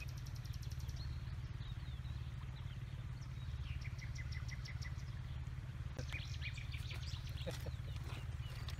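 Small songbirds chirping and calling over a steady low outdoor rumble: a quick run of high notes at the start, a falling series of notes around the middle, and scattered calls near the end.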